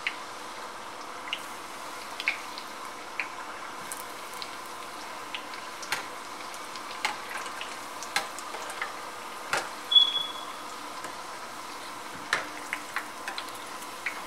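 Egg rolls deep-frying in hot oil in a stainless steel pot: a steady hiss of bubbling oil with scattered pops. A slotted steel spoon knocks against the pot now and then, loudest about ten seconds in with a short high ring.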